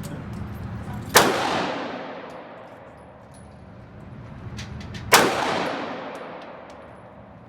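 Two revolver shots about four seconds apart, each a sharp crack with a long echoing tail that fades over a second or two.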